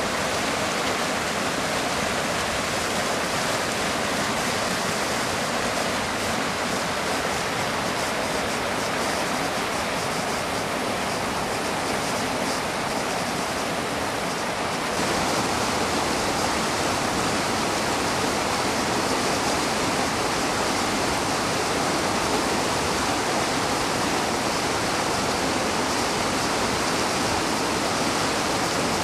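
Mountain river rushing through rapids between boulders: a steady roar of white water that gets a little louder about halfway through.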